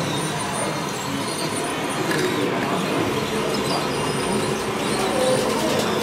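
Radio-controlled scale model trucks driving on a track layout, heard within a steady background din.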